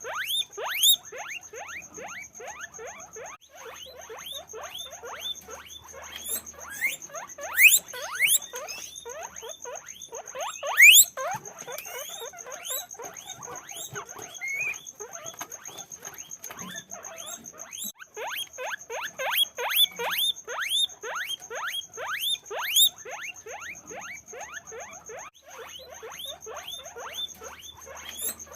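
A group of guinea pigs squeaking: rapid, overlapping short squeaks, several a second, with a few louder ones standing out.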